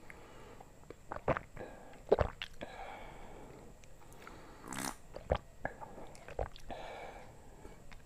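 Close-up drinking sounds of someone sipping and swallowing an iced orange drink, with several sharp mouth or glass clicks and a short hissy rush near the middle.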